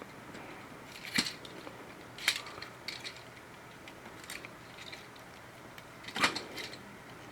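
Plastic parts of a Transformers Studio Series Brawn action figure clicking as its arm and body are moved during transformation: about five short, scattered clicks, the loudest about six seconds in.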